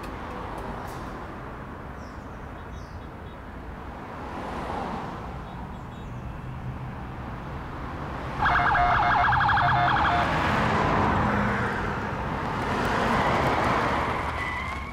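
City street traffic: cars driving past, swelling as each one passes. About eight and a half seconds in, a loud, rapidly pulsing electronic tone sounds for about a second and a half.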